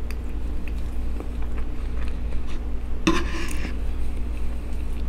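Quiet eating sounds: small clicks of a metal fork, and a short scrape a little after three seconds in as the fork scoops baked potato across a wooden board. A steady low hum runs underneath.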